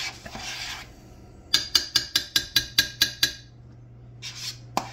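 A utensil scraping a thick, creamy mixture out of a mixing bowl, then a quick run of about a dozen ringing taps against the bowl, roughly six a second, to knock off what sticks.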